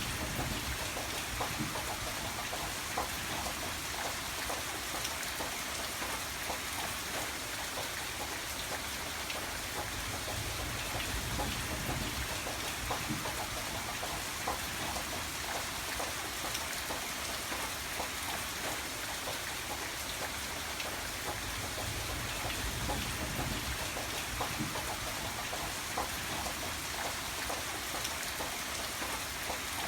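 Steady rainfall, with a constant hiss and many scattered drops ticking on a surface, over a low rumble that swells a little now and then.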